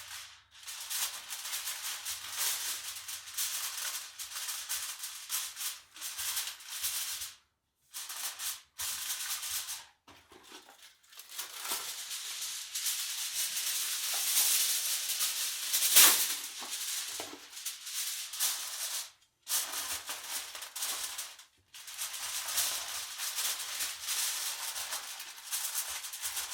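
Aluminium foil crinkling and rustling as it is pulled and pressed tightly around a pan, in several stretches with short pauses and one sharp crackle in the middle.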